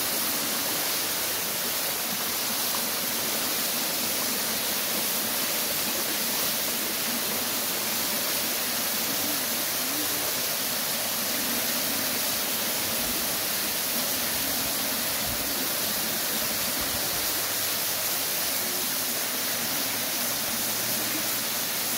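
Steady rushing, hissing noise that holds an even level throughout.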